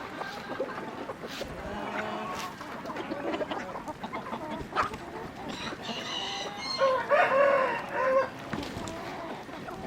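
Chickens clucking, with a rooster crowing once loudly about seven seconds in.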